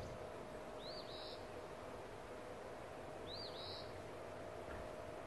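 A bird calling twice, about two and a half seconds apart, each call a quick high rising-and-falling note run straight into a short buzzy one. Under it, faint steady outdoor background noise with a low steady hum.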